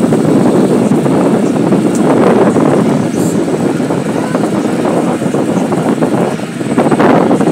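Steady, loud wind buffeting the microphone on the open deck of a ferry under way, with the ferry's running noise underneath.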